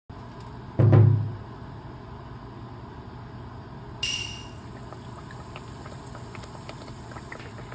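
A low thud about a second in. About four seconds in, a breaded pork cutlet goes into hot oil with a sudden burst of sizzling, which settles into steady deep-frying with small crackles.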